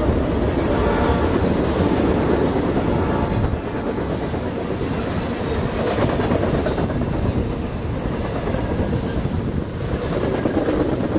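Freight train's covered hoppers and tank cars rolling past close by, a steady rumble with the clatter of steel wheels on the rails.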